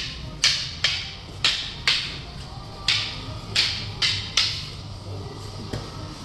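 Eskrima sticks clacking together in a single-stick strike-and-block drill. There are about eight sharp clacks in quick, uneven succession, often in pairs, and then a couple of softer ones near the end.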